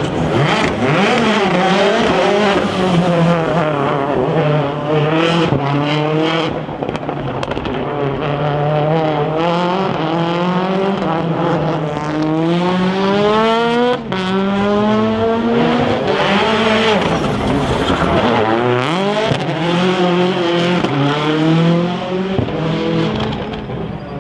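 Rally car engines at full throttle, their pitch climbing and dropping again and again through gear changes over several separate passes.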